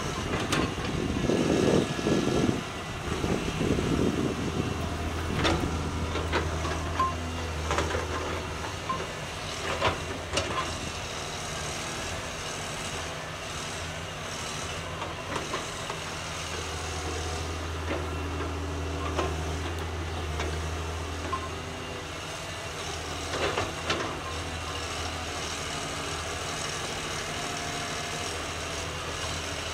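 Caterpillar 320C hydraulic excavator working: its diesel engine runs steadily under hydraulic load while the bucket digs into soil and brush, with scattered sharp knocks and crunches, loudest in the first few seconds.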